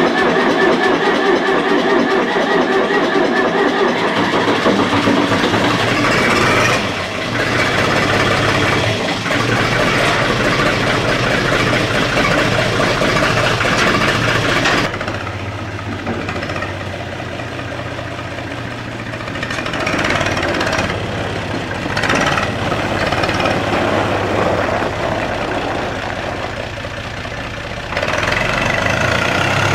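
Diesel engine of a Universal 445 DT tractor starting and then running, its note shifting a few times. It grows louder again near the end.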